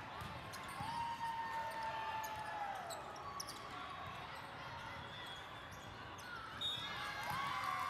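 Indoor volleyball play in a large multi-court hall: the ball being struck and hitting the floor in scattered sharp smacks, with short squeaks from sneakers on the court and voices of players and spectators around the hall.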